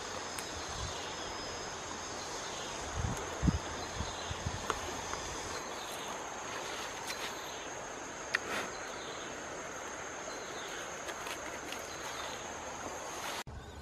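Insects trilling with a steady high-pitched buzz in the vegetation. Around three to four seconds in come a few soft knocks and rustles as hands work soil and leaves. The trilling breaks off abruptly just before the end.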